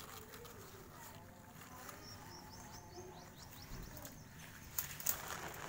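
Kittens mewing faintly and scrabbling about in a cardboard box. A quick run of high chirps comes through the middle, and a couple of sharp clicks and a scratchy rustle follow near the end.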